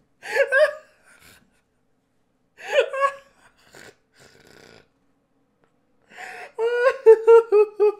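A man laughing hard. There are two short, breathy bursts of laughter with pauses between them, then near the end a rapid run of pitched ha-ha-ha pulses, about five a second.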